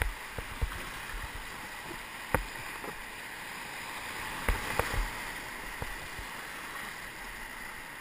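Whitewater rapids rushing around an inflatable raft: a steady hiss of moving water, broken by a few short, sharp knocks and splashes.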